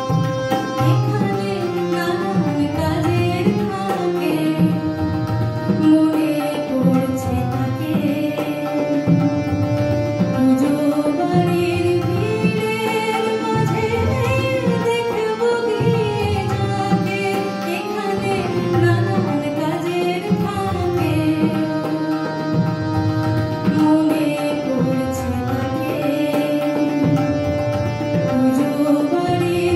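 A woman singing a Bengali song, accompanied by harmonium, with tabla keeping the rhythm.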